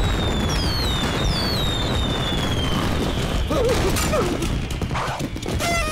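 Cartoon fireworks going off: a steady crackle and rumble of bursting shells, with several whistles falling in pitch over the first three seconds.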